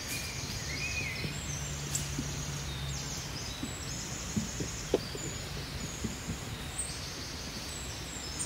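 Birds chirping over a steady outdoor hiss, with a few soft taps and clicks as a utensil spoons a sautéed filling from a frying pan into a whole chicken; the sharpest tap comes about five seconds in.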